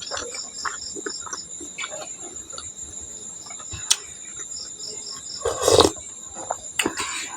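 Close-miked eating: small wet mouth clicks and chewing, with one louder burst of eating noise about five and a half seconds in, over a steady high-pitched pulsing chirp in the background.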